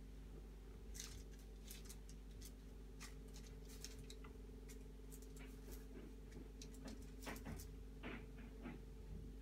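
Faint, scattered light clicks and taps of hands pressing and placing biscuit dough pieces on a paper-lined baking tray, over a steady low hum.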